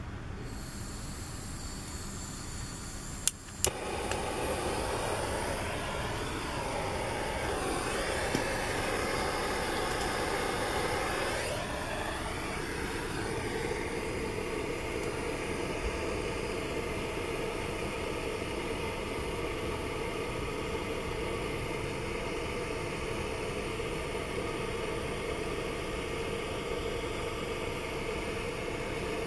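Two sharp clicks, then a motor-driven machine starts and runs steadily, its pitch wavering for several seconds before it settles.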